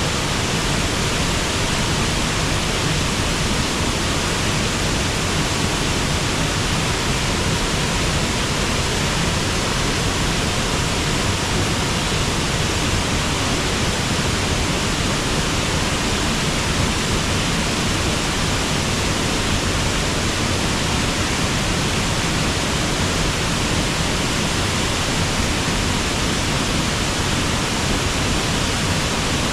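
River waterfall pouring steadily: a dense, even rush of falling water that does not change.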